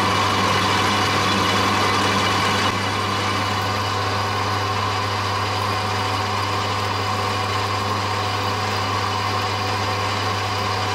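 Metal lathe running steadily while a twist drill bores into the centre of a spinning cast aluminium workpiece: a constant low motor hum under a steady whine. The sound drops a little in level about three seconds in.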